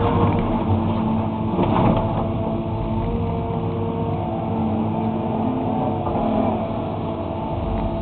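Excavator's diesel engine running steadily as it works, its pitch briefly rising and falling about six seconds in. A short clatter sounds about two seconds in.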